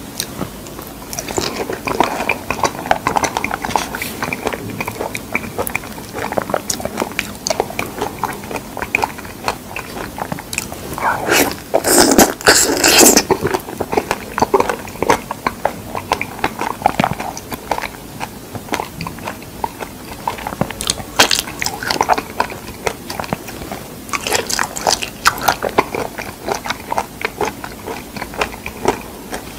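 Close-miked biting and chewing of fresh figs, with many quick irregular mouth clicks and a louder stretch of biting about twelve seconds in.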